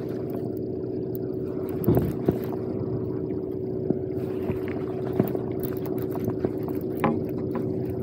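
A sport fishing boat's engine running with a steady hum, with a few short clicks and knocks close by, the loudest about two seconds in and again near the end.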